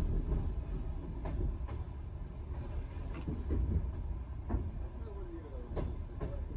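Sleeper train running on the rails: a steady low rumble with irregular sharp clacks of the wheels over rail joints.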